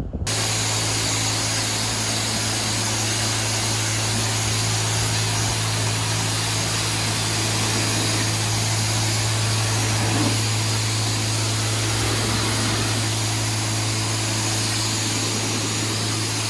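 Pressure-washer wand spraying a high-pressure jet of water against a pickup truck's side: a steady hiss over a steady low hum that begins abruptly and does not let up.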